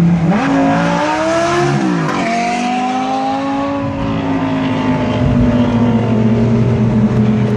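Lamborghini engine accelerating hard: the exhaust note climbs in pitch, drops at a gear change about two seconds in, climbs again through the next gear, then settles into a steady drone.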